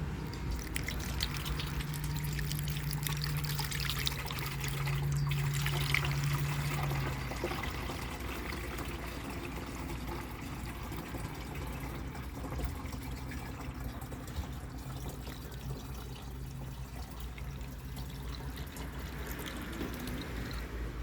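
Windshield washer fluid being poured into the washer reservoir: a steady trickling pour. A low steady hum runs under it for the first seven seconds or so.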